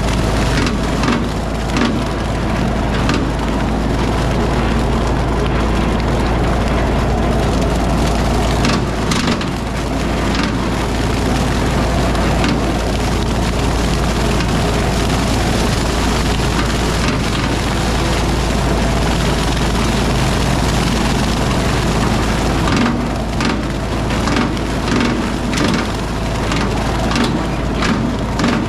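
RK37 tractor engine running steadily while its bush hog rotary cutter chews through brush. Woody stems snap and splinter in repeated sharp cracks, thickest about nine seconds in and again over the last several seconds.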